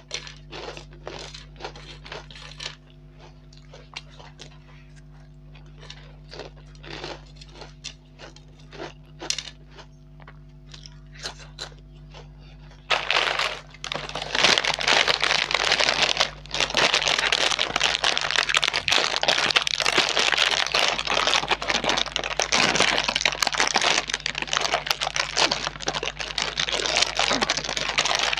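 Crunchy fried snacks being bitten and chewed close to the microphone, in short separate crunches. About thirteen seconds in, a plastic snack packet starts to crinkle loudly and without a break as it is held up and tipped to the mouth.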